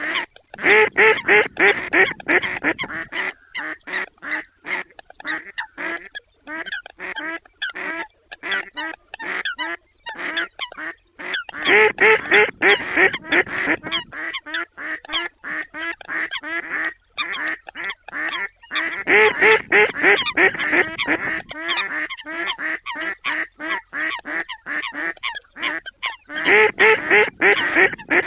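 Eurasian coots and mallards calling together: a dense chorus of short, quick calls and quacks that swells into louder bursts of calling four times.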